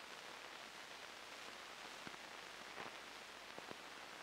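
Faint steady hiss with a few faint clicks and crackles: the background noise of an old film soundtrack.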